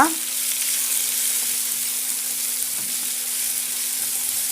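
Grated onion and vermicelli sizzling in hot butter and corn oil in a frying pan, stirred with a spoon. A steady low hum runs underneath.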